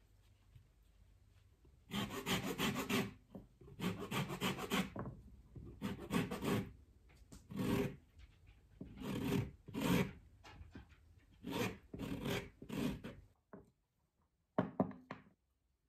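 A lemon being zested on a microplane grater propped on a wooden cutting board: the peel rasps across the blade in short bursts of quick scraping strokes, each pass under a second long. There is a brief pause near the end, then one last short pass.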